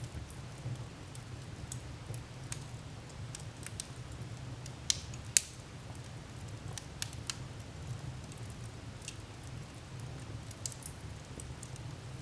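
Fire crackling in a fireplace: scattered small pops and snaps over a low steady rumble, with two louder pops about five seconds in.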